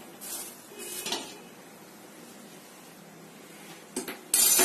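A few faint pops from the last popcorn kernels in the pot in the first second or so, then a short loud clatter of metal cookware and utensils near the end.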